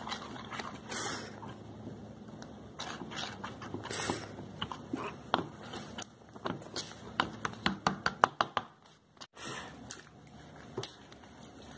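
Hands kneading and squeezing homemade slime, the slime squelching and clicking, with a quick run of clicks about two-thirds of the way through.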